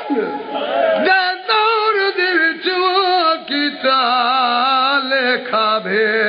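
A man singing a Punjabi mourning lament (majlis recitation) into a microphone, in long held notes with a strong wavering vibrato.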